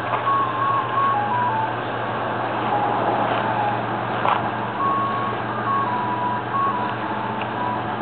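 Ice cream truck's chime box playing a simple tune in single electronic beeping notes, with a pause in the tune in the middle. Under it runs the steady low hum of the truck's engine idling.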